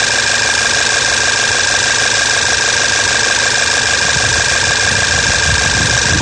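VW Tiguan TSI petrol engine idling steadily, with a constant high-pitched whine over it; the low rumble grows a little louder near the end.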